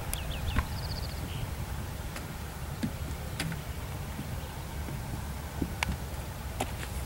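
A saddled mule picking its way over logs: a few scattered, sharp knocks of its hooves on wood and ground over a steady low rumble. A few short bird chirps come near the start.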